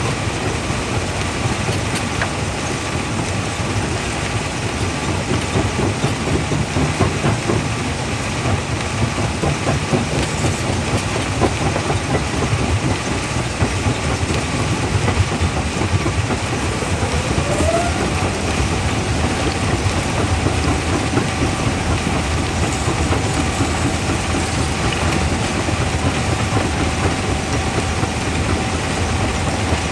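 Quarry primary jaw crusher running and crushing rock: a steady dense rattle and grinding full of small irregular knocks as stone breaks between the jaws. A short rising tone a little past halfway settles into a thin steady whine that lasts to the end.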